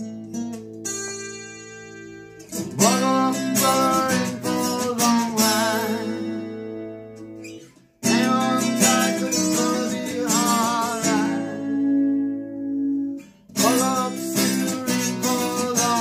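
Gibson Gospel acoustic guitar strummed and picked through a song, with a man singing over it in stretches. Early on a chord is left ringing, and just before halfway the playing stops for a moment before starting again.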